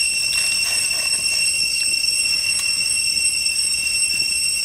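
Cicadas droning: a steady, high-pitched whine that does not change. A few faint clicks come in the first second and a half.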